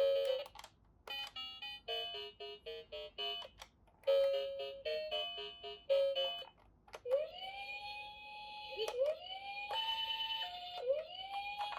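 A bright electronic melody of quick plinking notes, then about seven seconds in a siren starts, its wail rising and holding three times about two seconds apart.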